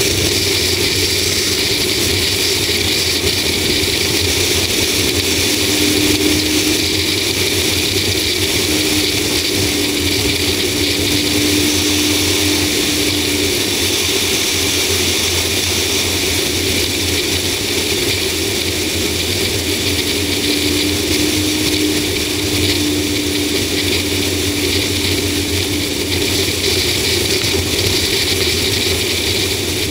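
A 2004 Ford Explorer driving at cruising speed, heard from a camera mounted on its hood: a steady rush of wind and road noise over a low engine hum. A faint steady hum comes in for a few seconds twice.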